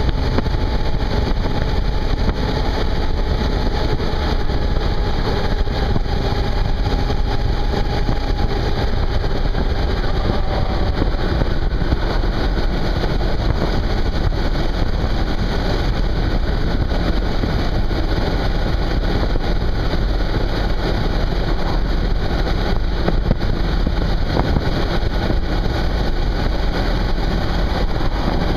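Wind rush and the running engine of a Suzuki V-Strom 650 motorcycle, heard from on board while riding at a steady road speed. A faint steady engine tone shows through for about the first ten seconds, then sinks into the wind noise.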